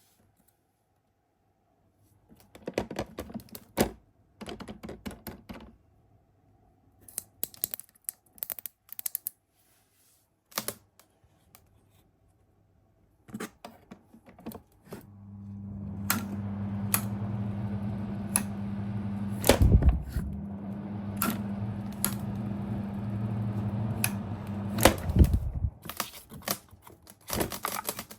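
Takasu Sangyo FF-200 ventilation fan: a run of clicks and rattles from its switch and housing, then the motor spins up about halfway through with a steady electric hum and a rush of air. It runs for about ten seconds, cuts off suddenly, and the clicking starts again.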